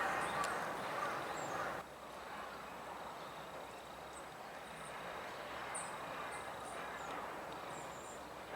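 Several short, faint, high bird call notes over a steady background hum of the surroundings; the background drops abruptly a little under two seconds in.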